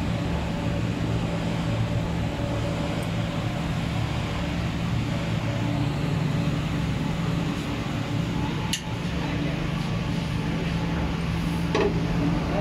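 Steady hum of running workshop machinery, with a couple of short clicks, one about nine seconds in and one near the end.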